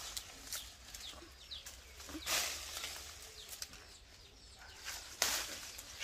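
Leafy guava branches rustling in two bursts, about two and five seconds in, as they are pulled and shaken while picking fruit, with a few faint bird chirps.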